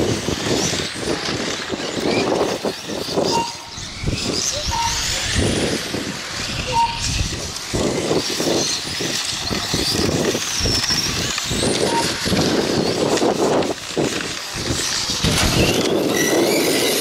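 1/8-scale brushless electric on-road RC cars running on the track, their motors whining and the pitch rising and falling as they accelerate and brake.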